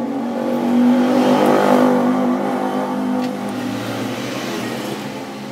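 A motor vehicle engine running steadily, growing louder about a second in and then easing off.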